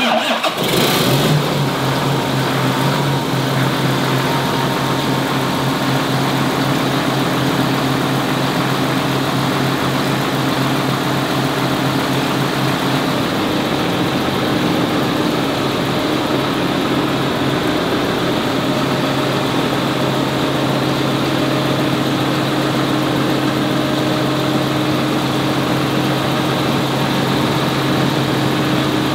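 John Deere 7920 tractor's six-cylinder diesel engine idling steadily at an even pitch.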